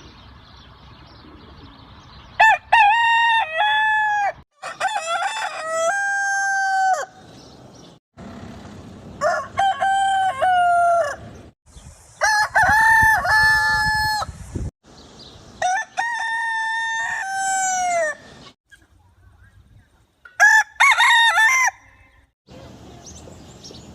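Roosters crowing: about five separate cock-a-doodle-doo calls, each a few seconds long, some from different birds, cut one after another with abrupt breaks and changes of background between them.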